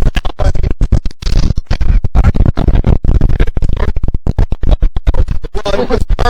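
Heavy wind buffeting an action camera's microphone: a loud, distorted low rumble broken by dense, irregular crackles.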